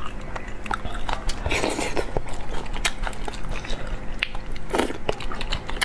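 Close-miked eating sounds: wet chewing and mouth smacks, with many quick sharp clicks scattered through.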